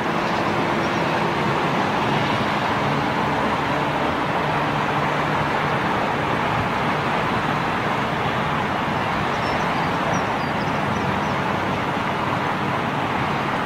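Distant jet noise from a Boeing 747-400's four engines at takeoff power during its takeoff roll: a steady, even rush of engine noise that holds level throughout, with a faint low hum fading out in the first few seconds.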